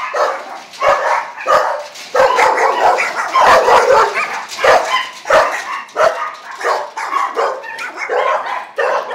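A pack of dogs barking continuously, many barks overlapping each other with no pause.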